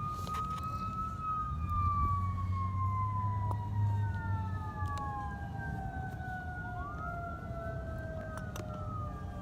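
Emergency vehicle siren wailing in long, slow sweeps, more than one wail overlapping and the pitch drifting down overall. A low rumble joins it for a few seconds early on.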